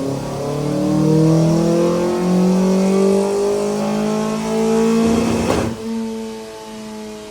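4G93 MIVEC inline-four engine pulling under load on a chassis dyno, its pitch climbing steadily for about five seconds. Then comes a short rush of noise, after which the engine runs on at a lower, steadier note.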